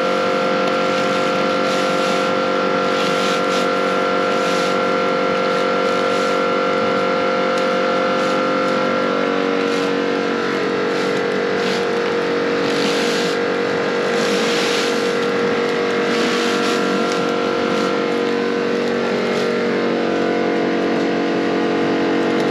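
Pressure washer running with a steady motor drone, its water jet hissing louder in spells that come and go every few seconds as it sprays the yard.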